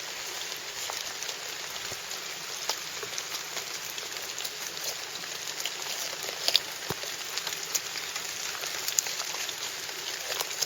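A Benchmade 551 Griptilian folding knife cutting into a deer carcass: a steady crackling hiss with scattered sharp clicks, the loudest about six and a half seconds in.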